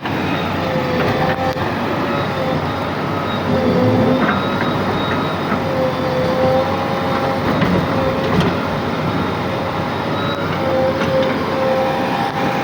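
Diesel engine of a JCB 3DX backhoe loader running steadily, with a high whine that wavers slightly in pitch and a few faint knocks.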